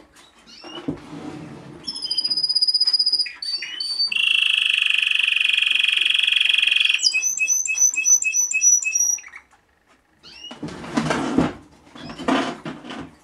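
Male Timbrado Español song canary singing: a steady high whistle, then a long, dense rolling trill of about three seconds, followed by a run of short repeated metallic notes at about four a second. Two short, noisier bursts come near the end.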